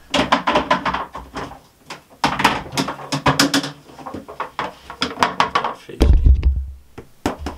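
Handling noise from a clear plastic enclosure: a rapid run of sharp plastic clicks and knocks, then a heavy low thump about six seconds in as the tub is shifted.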